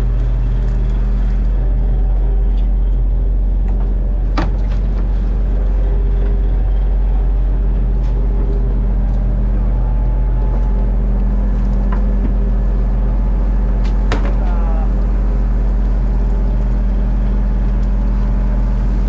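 Fishing boat's engine running steadily with a constant low hum, and sharp knocks twice, about four and fourteen seconds in.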